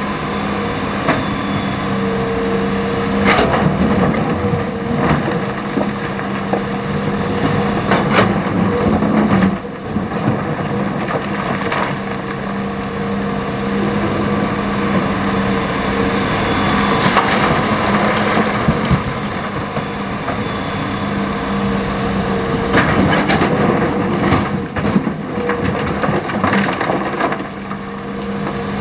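Hitachi ZX200 hydraulic excavator working under load, its diesel engine and hydraulics running with a steady hum and whine. River stones clatter and knock against the steel bucket several times, with a run of knocks over a few seconds near the end.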